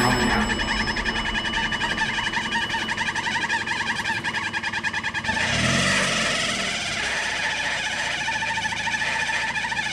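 An off-road 4x4's engine running with a fast, even pulse, rising briefly in a rev about halfway through.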